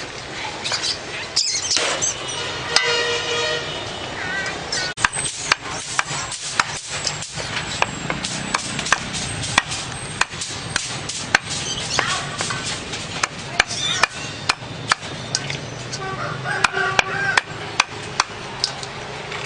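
Knife chopping the feet and heads off rats on a round wooden chopping block: sharp knocks at irregular intervals, about one or two a second from around five seconds in.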